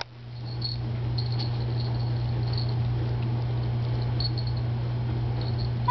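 Very young Miniature Schnauzer puppies giving tiny high squeaks every second or so while they nurse, over a steady low hum.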